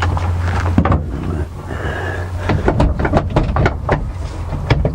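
Irregular knocks and rattles of parts being worked and pulled loose from a car's dashboard and steering column, coming thick and fast in the second half, over a steady low hum.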